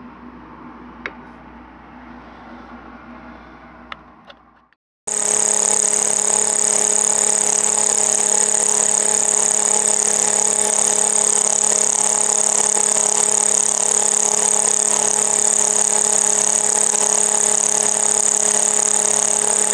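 A couple of small clicks in a quiet room, then about five seconds in a Sherline mini mill comes on and runs loud and steady, its end mill cutting a slot, with a high, even motor whine.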